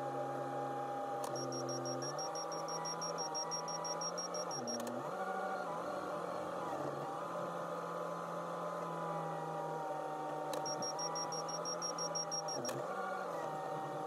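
Backhoe loader's diesel engine running, heard from the cab, its pitch dipping briefly a few times as the machine manoeuvres. Twice a rapid high-pitched beeping sounds for two to three seconds, switched on and off with a click.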